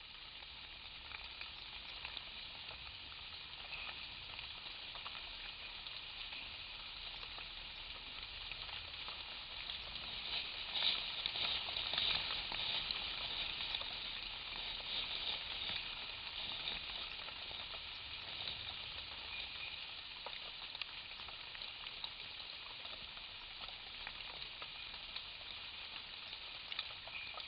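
Steady high-pitched hiss of a forest insect chorus, with a few faint steady tones inside it, swelling a little about ten to thirteen seconds in.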